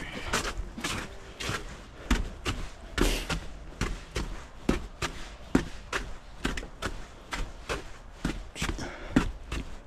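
Footsteps of someone walking at a steady pace, about two sharp steps a second, with a steady low rumble beneath.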